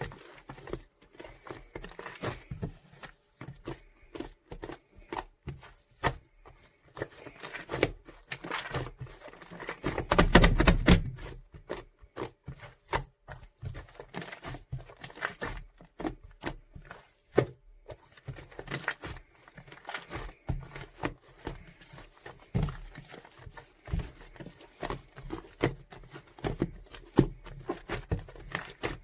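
Shaving foam being worked by hand, giving a run of small crackling, squishing clicks. A louder rustling burst lasts about a second, starting about ten seconds in.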